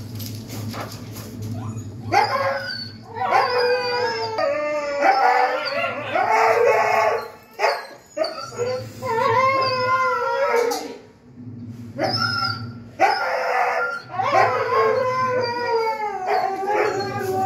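Siberian huskies howling and whining while mating, in long wavering calls that come in bouts of a few seconds with short breaks between them.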